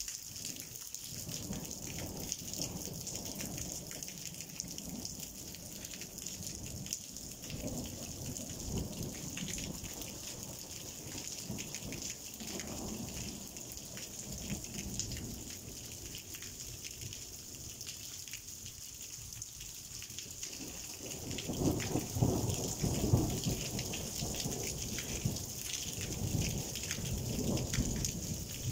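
Rain falling steadily with a constant hiss of drops, while thunder rumbles low underneath. The rumbling swells up loudest about three quarters of the way in.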